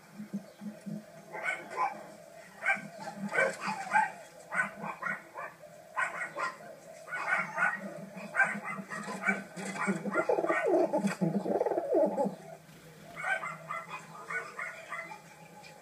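A dog yapping in quick runs of short calls, with a longer whining call about ten seconds in.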